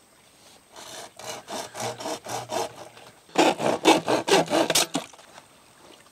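Corrugated plastic land-drainage pipe rasping and rubbing against a pipe connector as it is worked on by hand. It comes as a run of rough strokes, several a second, louder in the last second and a half before stopping about five seconds in.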